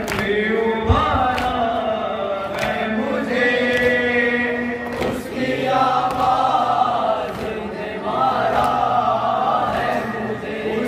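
Male voices chanting a noha, a Shia lament, in long held, wavering notes, with a lead reciter and a group joining in. Chest-beating (matam) blows thud at irregular intervals under the singing.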